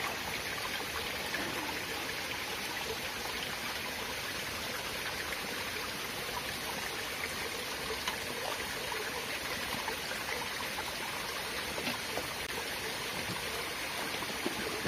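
Small rocky forest stream trickling steadily over stones.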